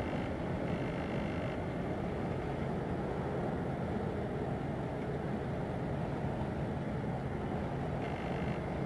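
Steady low rumble of marine diesel engines from a harbour tug and a large container ship moving on the river.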